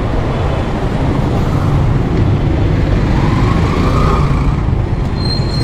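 Road traffic noise: motor vehicles running close by, a steady low rumble.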